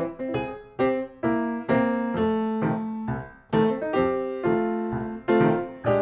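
Background keyboard music: a melody of struck piano-like notes that each ring and fade, at an even pace.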